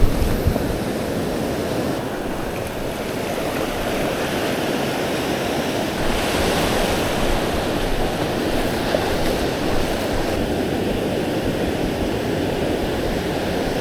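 Ocean surf washing steadily onto a sandy beach, with a wave rushing in about halfway through and some wind on the microphone.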